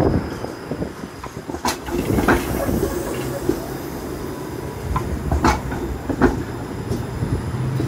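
Toronto TTC Flexity Outlook low-floor streetcar rolling slowly past: a steady low rumble, broken by several sharp, unevenly spaced clacks from the wheels on the track.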